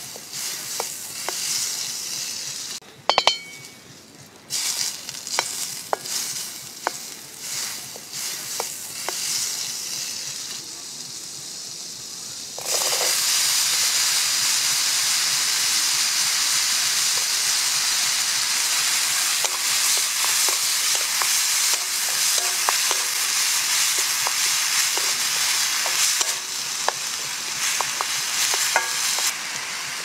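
Butter sizzling and spitting in a metal pan while a wooden spoon stirs through it, with a couple of sharp clinks about three seconds in. About thirteen seconds in the sizzle jumps to a loud, steady hiss with crackles as chopped red onion and garlic fry in the butter, stirred now and then.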